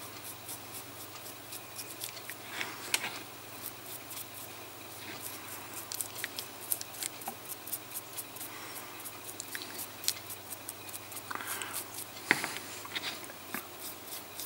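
A dry brush scratching and flicking over the raised scales of a painted miniature: a fast, irregular run of small dry ticks, with a few soft scrapes and one sharper click near the end.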